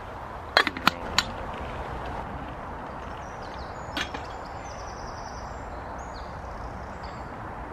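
Metal lid of a camping pot handled and lifted, clinking sharply several times in the first second, with one more clink about four seconds in. A spoon is then stirred in a mug, faint against steady background noise.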